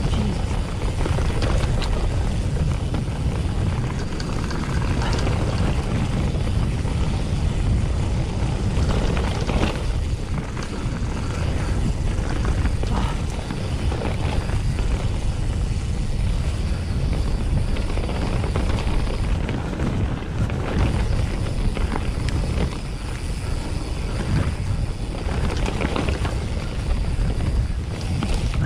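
A Commencal Meta V4.2 mountain bike descending a rough grass and dirt trail: a constant low rumble of wind buffeting the camera microphone, with tyre noise and many small knocks and rattles from the bike over bumps.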